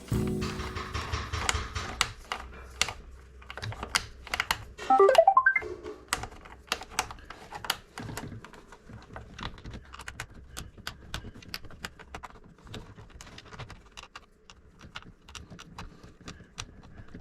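Small Phillips screwdriver and fingers working a screw out of a Roomba 675's plastic housing: irregular light clicks and taps of metal and plastic, with a brief squeak about five seconds in.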